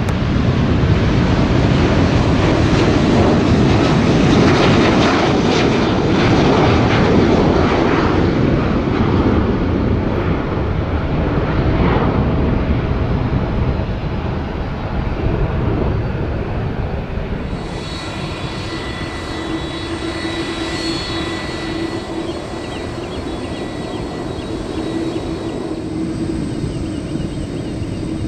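Boeing 777's twin jet engines at takeoff thrust: a loud rumbling roar as it lifts off and climbs away, fading over about fifteen seconds. After an abrupt cut about two-thirds of the way through, a quieter steady jet whine with a few high steady tones from a taxiing Airbus A330's engines.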